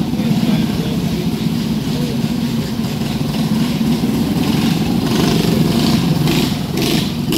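Several small dirt-track go-kart engines running together as the karts race around the oval, a steady drone that grows louder about five seconds in as a kart passes close.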